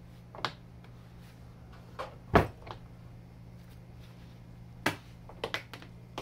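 Short metallic clunks and clicks from a Tesla drive unit's gearbox as its axle shaft is twisted by hand. The parking pawl is already engaged, so the gears only rock through their play. There are about six knocks, the loudest about two and a half seconds in.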